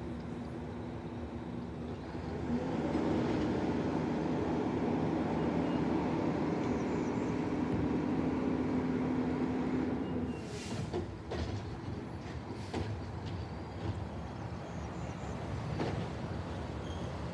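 A garbage truck's diesel engine revs up and holds for about seven seconds while it drives the truck's hydraulics to lift and empty a cart, then settles back to idle. This is followed by a few knocks and clanks from the cart and lifter.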